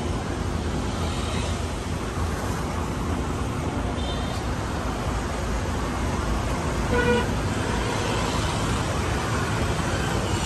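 Steady road traffic noise with a short vehicle horn toot about seven seconds in.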